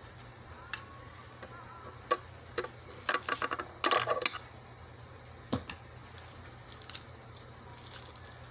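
Small clicks, taps and light jangling from earrings and their little packaging being handled, with a quick flurry of clicks about three to four seconds in.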